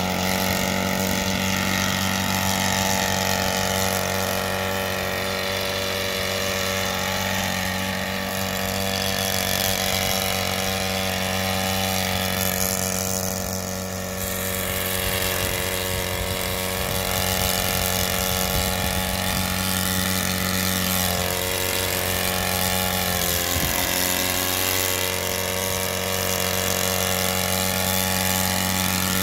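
Four-stroke engine of a converted Thunder Tiger Raptor RC helicopter running steadily as the helicopter lifts off and hovers low. The engine's pitch sags briefly twice in the last third.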